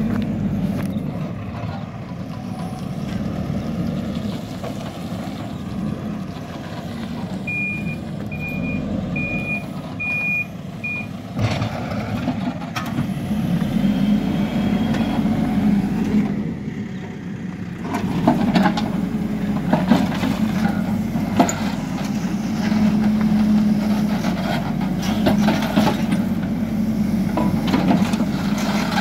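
Hidromek 102S backhoe loader's engine running steadily, with its reversing alarm giving five short beeps about a quarter of the way in. In the second half the engine works harder and the backhoe arm and bucket knock and clank as it digs into a heap of soil.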